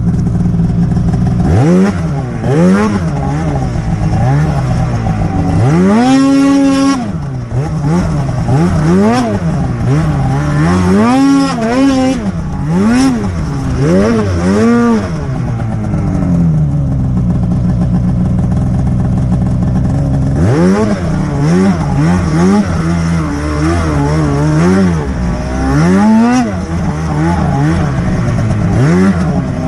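Snowmobile engine revving up and down over and over in short throttle bursts, with one longer climb about six seconds in. It settles to a steady run for a few seconds in the middle, then revs in bursts again.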